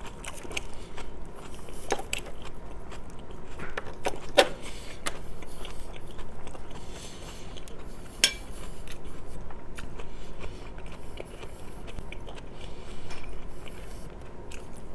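Close-miked chewing and biting of rice and braised meat, with a few sharp clicks of cutlery on the plate, the loudest about four and eight seconds in.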